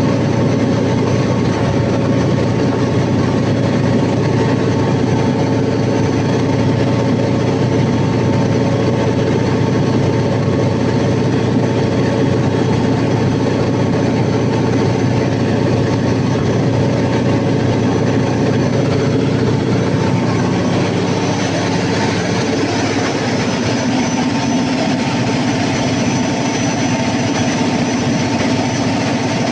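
Cummins KTA50 V16 turbocharged diesel engine of a 750 kW generator set running steadily during a load test after a full overhaul. The engine's tone shifts slightly about two-thirds of the way through.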